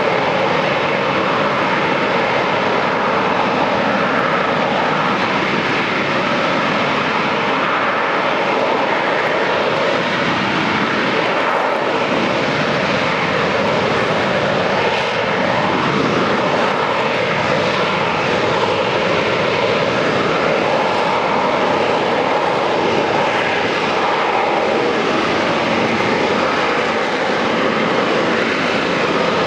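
Harrier jump jet hovering, its Rolls-Royce Pegasus turbofan giving a loud, steady jet noise that holds without letting up.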